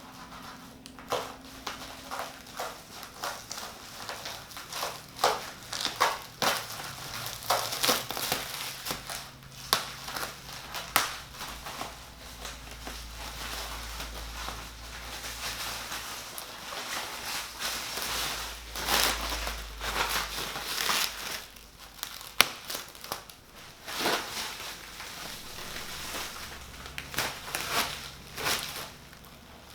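Cardboard box and packing material of a PC case being handled and opened: irregular crinkling and rustling with scattered knocks and taps.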